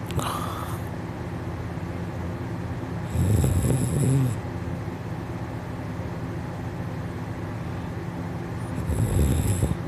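A person snoring in sleep: two long snores about six seconds apart, over a steady background hum.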